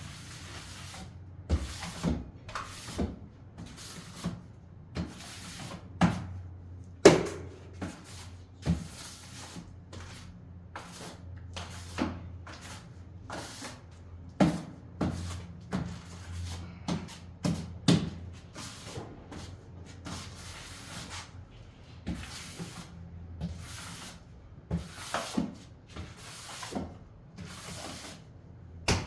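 Irregular knocks, taps and short scrapes of hand tools on tile and hard surfaces, with a steady low hum underneath. The loudest knock comes about a third of the way in.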